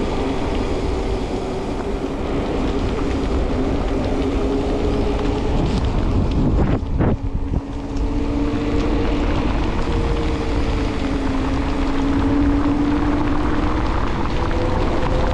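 Wind rushing over the microphone of a mountain bike speeding downhill at about 30 km/h, with its tyres hissing and humming on wet asphalt. The hum is a steady tone that rises slightly in pitch near the end as the speed picks up.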